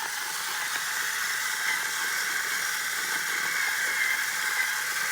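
Battery-powered electric coffee grinder running steadily after being switched on, a continuous high whir with no breaks.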